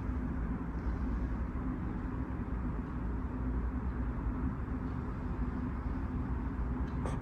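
Steady low rumble and hiss with a faint even hum: room tone, with no distinct events.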